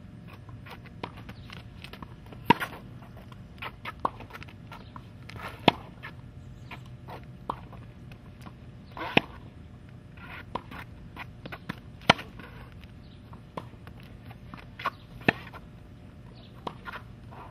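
Tennis rally: sharp pops of the racket striking the ball, the loudest about every three seconds, with fainter hits and ball bounces on the interlocking plastic tile court in between. A low steady hum runs underneath.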